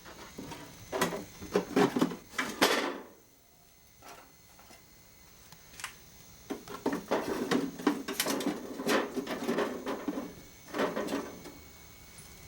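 Handling noise from a wooden bird house being moved: knocks, scrapes and rattles in bursts, with a quiet gap of a few seconds between them.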